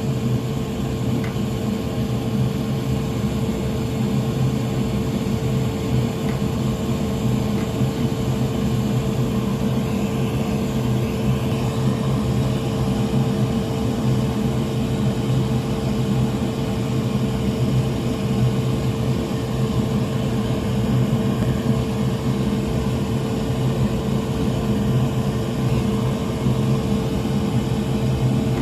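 Steady whir of an electric fan or blower, with a constant hum tone running through it.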